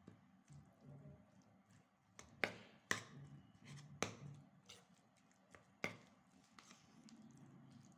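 Steel spoon mixing curd and flattened rice in a stainless steel bowl, with the soft mash of the food and sharp clinks of the spoon against the bowl, four loudest between about two and six seconds in.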